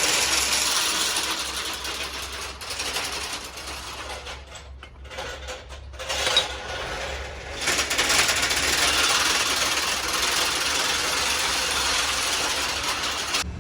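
Harsh, steady metalworking machine noise in a workshop. It fades away around four to six seconds in, with a single sharp click just after six seconds, then runs loud again and cuts off suddenly near the end.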